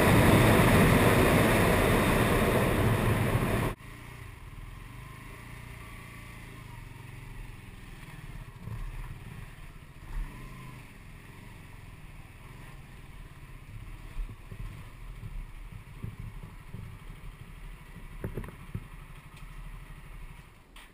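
Honda CBR125R single-cylinder engine under way at road speed, buried in heavy wind noise on the microphone. This cuts off abruptly about four seconds in to a much quieter low rumble with a few small knocks as the bike moves slowly on gravel.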